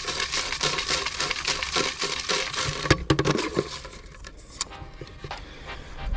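Hand rummaging through folded paper slips in a bucket: a dense crinkling rustle for about three seconds, then softer, sparser rustling.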